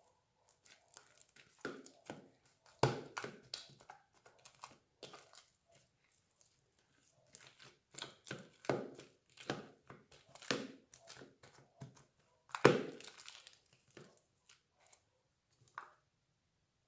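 Homemade slime being squeezed and pressed by hand, giving irregular sticky clicks, pops and crackles, with two louder pops at about three seconds and near thirteen seconds.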